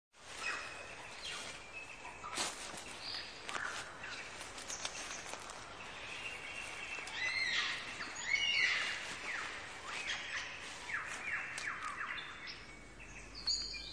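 Several wild birds calling together: a busy mix of short whistles, chirps and quick descending notes, with a few sharp clicks, over a faint steady background hiss.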